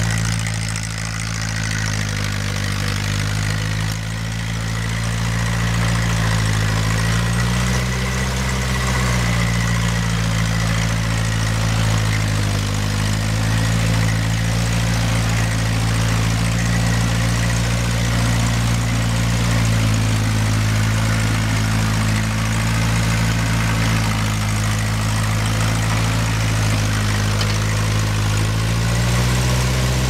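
1952 Ferguson TEA 20's petrol four-cylinder engine running steadily under load while the tractor pulls a mounted plough through the soil, its engine speed dipping and recovering slightly a few times.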